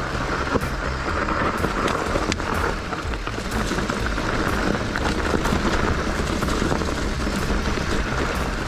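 Mountain bike riding down a dirt trail: a steady rush of wind on the microphone with tyre rumble and scattered clicks and rattles from the bike.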